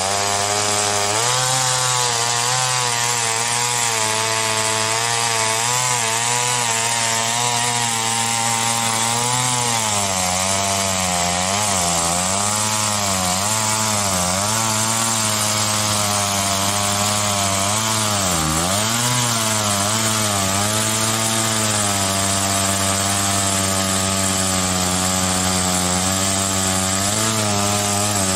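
Homelite 410 two-stroke chainsaw running at full throttle while cutting through an oak log, its pitch dipping and recovering again and again as the chain loads up in the cut, most deeply about eighteen seconds in.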